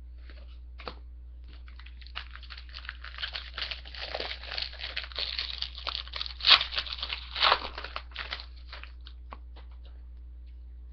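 A plastic-wrapped pack of hockey cards being torn open and its wrapper crinkled: several seconds of dense, fine crackling, with a few sharper, louder crinkles past the middle.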